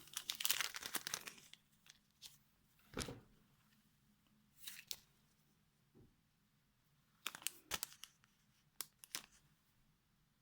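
Plastic packaging crinkling as small bags of craft embellishments are handled. A dense rustle comes in the first second and a half, then brief crackles every second or two.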